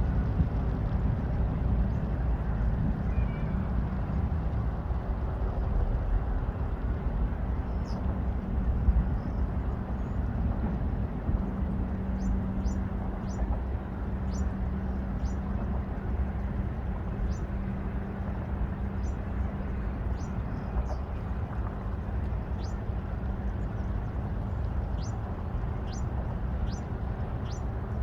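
Steady low outdoor rumble, with a bird's short, high chirps falling in pitch repeating about once or twice a second through the second half.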